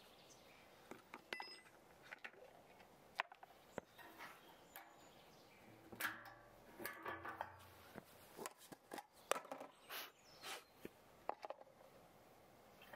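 Faint, scattered clicks and knocks of a chainsaw being handled for refuelling: its fuel cap opened, a jerry can picked up and a funnel set into the tank, the handling busiest from about halfway in.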